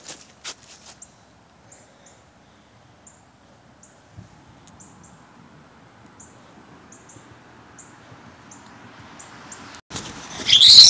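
Faint, very high, short bird chirps, a dozen or so spread unevenly over several seconds. Near the end a sudden loud sound breaks in.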